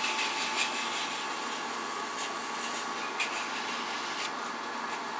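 320-grit sandpaper held against a small wooden bead spinning on a wood lathe, a steady rubbing hiss over the lathe's continuous running tone.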